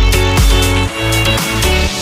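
Background music with a steady beat and pitched instruments.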